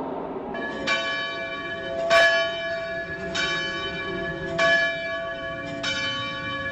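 A church bell tolling slowly, five strokes about one every 1.2 seconds, each left to ring on, starting about a second in: a funeral toll.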